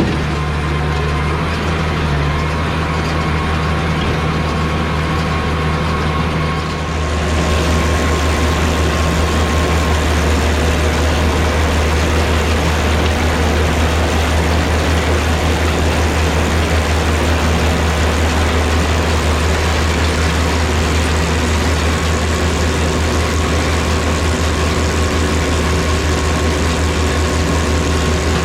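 White 2-135 tractor's diesel engine running steadily under load while pulling a New Holland BR770A round baler, the sound getting louder and fuller about seven seconds in.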